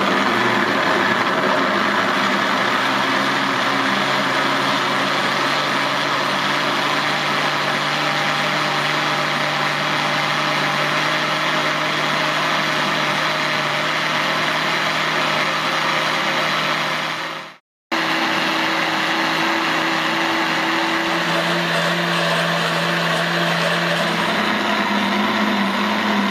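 Electric countertop blender running steadily as it purées fresh tomatoes and peppers with a little water. It cuts out for a moment about two-thirds of the way through, then runs on, its motor pitch dropping and then rising near the end.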